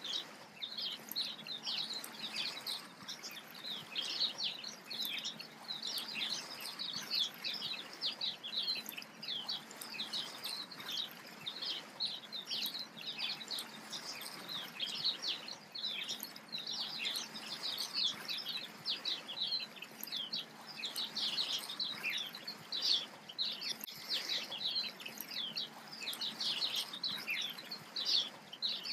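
Many small birds chirping in a dense, continuous chorus of short, quick calls.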